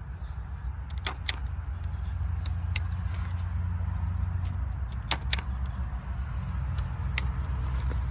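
Hand-held tape-binding tool clicking sharply as it is squeezed to staple tape around stems, several clicks coming in quick pairs, over a steady low rumble.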